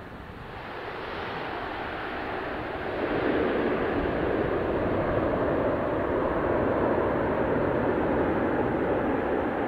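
Four Allison T56 turboprop engines of a C-130H Hercules running, the steady propeller and engine noise growing clearly louder about three seconds in.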